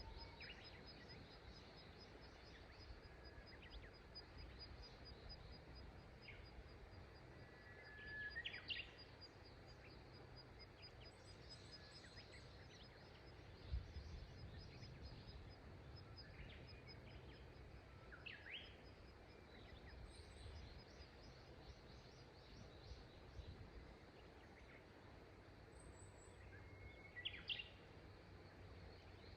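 Faint wild birdsong: scattered short calls, three of them louder and about ten seconds apart, over a faint steady outdoor background hiss. A single soft low thump about fourteen seconds in.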